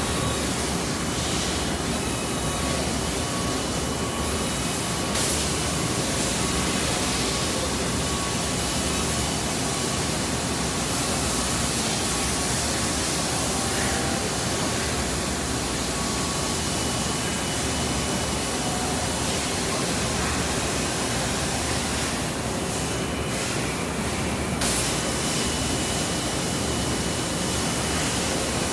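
Steady hiss and hum of a Viper VTL-16/20M CNC vertical lathe running under power, with a faint steady whine. Two brief louder bursts stand out.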